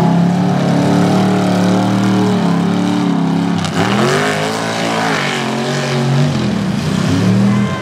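Lifted mud truck's engine running hard at high revs as the truck charges through a mud bog. About halfway through the revs drop sharply, then climb back and hold.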